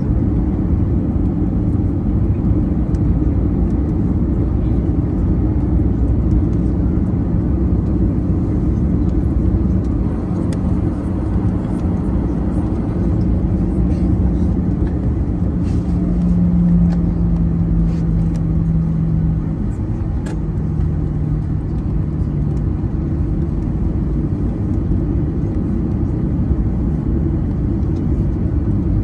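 Cabin noise of a Boeing 737-800 taxiing: a steady low rumble from its CFM56 engines at taxi power, with a low hum that steps down slightly in pitch about two-thirds of the way through.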